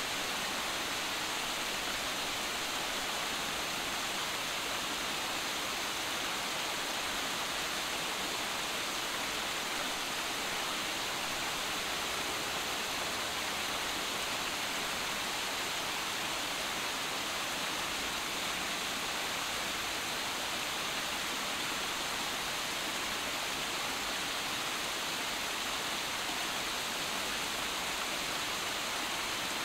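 Small cascades of water pouring over boulders: a steady, unbroken rush of falling, splashing water.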